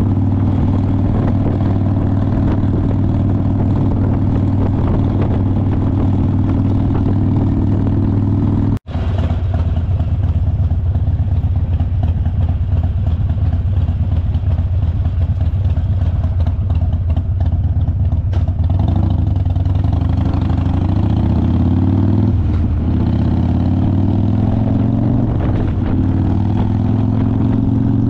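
Harley-Davidson motorcycle's V-twin engine running steadily under way. After a short break about nine seconds in, it pulls harder in the last third, the revs rising and dropping back several times as it shifts up through the gears.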